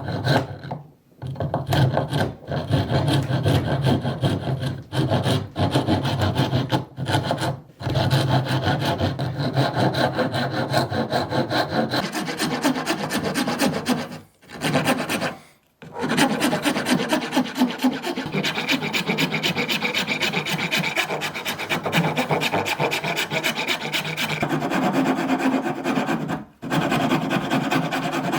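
Hand sanding: rapid back-and-forth abrasive rubbing strokes, stopping briefly a few times.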